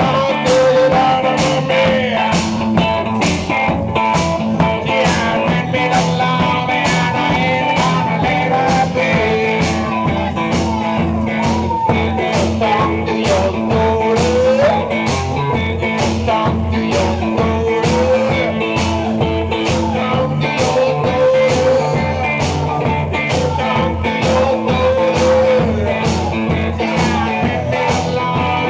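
Live blues-rock: electric guitar played over a steady bass-drum beat of about one and a half strikes a second, with sliding, bending guitar notes.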